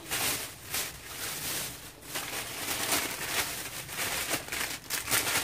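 Thin plastic carrier bag rustling and crinkling as a hand rummages through it, with the plastic packaging of the goods inside crackling. The crackles come in quick, irregular bursts.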